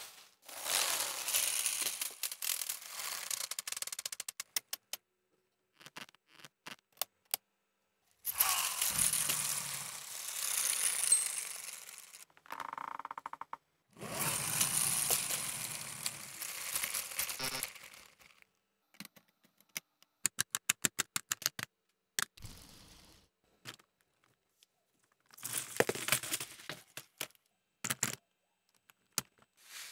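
Loose granules rustling and scraping in stretches as they are spread and disturbed by hand, broken up by runs of sharp clicks from Lego Technic plastic parts being handled and fitted.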